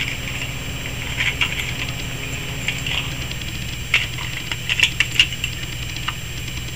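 Cocker spaniel chewing a frozen tart treat: irregular crunches and sharp clicks, with a cluster of louder ones about four to five seconds in, over a steady low hum.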